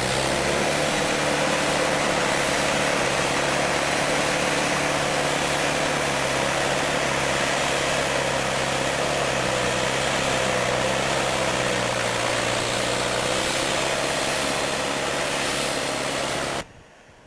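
A digger's engine running steadily after a brief rise in pitch, over a heavy rushing noise; the sound stops abruptly near the end.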